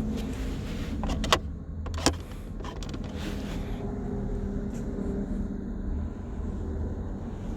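Mercedes C180 Kompressor's supercharged 1.8-litre four-cylinder petrol engine running steadily with a low rumble. Two sharp clicks come about a second in and again a second later.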